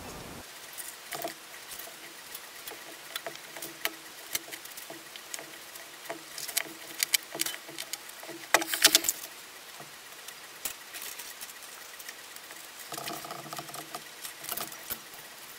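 Small scattered clicks and taps of needle-nose pliers and 0.5 mm piano wire being handled and bent into a hairspring spiral, with a brief cluster of louder clicks about halfway through.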